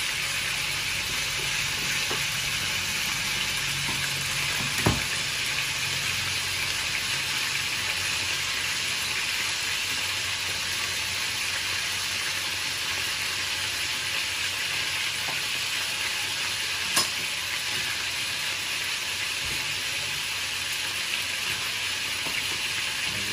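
Marinated conger eel pieces sizzling steadily as they fry in oil in a pan. Two sharp knocks of a knife on a plastic chopping board stand out, about five seconds in and again about seventeen seconds in.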